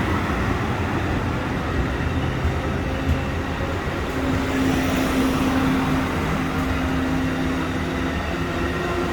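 Amtrak Silver Meteor passenger train running on the tracks: a steady rumble with a low engine hum, and a clearer humming tone that comes in about four seconds in and fades near the end.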